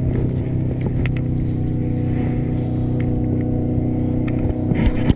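Boat's outboard motor idling at a steady pitch, with a few light knocks from handling in the boat; the sound cuts off suddenly at the end.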